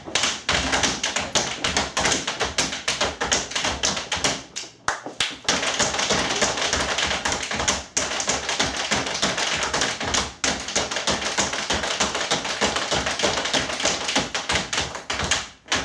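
Two dancers' tap shoes striking a stage floor in fast, dense rhythms without music, with brief breaks about five and eight seconds in; the tapping stops just before the end.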